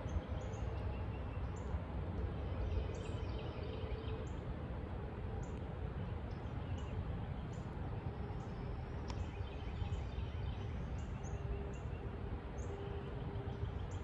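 Woodland ambience: many small birds calling, with short high chirps repeating every second or so and a few brief warbled phrases, over a steady low rumble.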